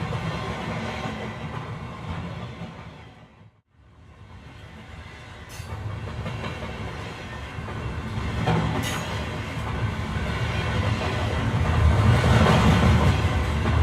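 Rumble of a passenger train running along the track. It fades out briefly about three and a half seconds in, then returns and grows louder, with two short sharp clicks along the way.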